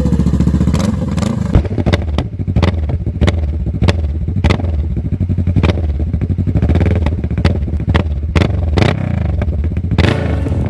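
2016 Kawasaki Vulcan S's 649 cc parallel-twin engine running on a newly fitted Two Brothers Comp-S full exhaust, freshly started after the exhaust and Power Commander install. A steady, loud exhaust note with irregular sharp snaps about once or twice a second.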